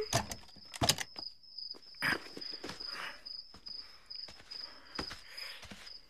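A cricket chirping in a steady, evenly pulsed high trill. Near the start a wooden front door opens with a click and a knock, and a few soft footsteps follow.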